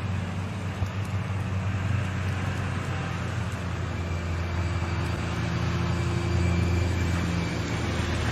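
A vehicle engine running steadily at a low pitch, with road or machine noise around it.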